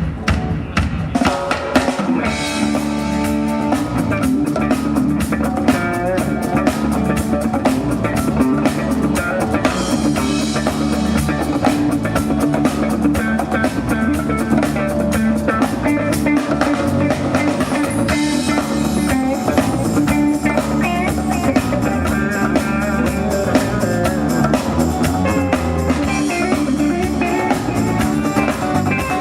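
Folk band playing live, a drum kit keeping a fast steady beat under guitar and other instruments, the fuller band coming in about two seconds in.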